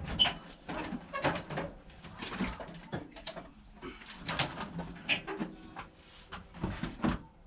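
Irregular clatter, knocks and rustling of tools and objects being handled and rummaged through.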